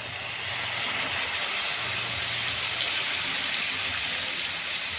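Coconut milk poured in a thin stream onto pork cooking in a hot pot, with a steady sizzling hiss.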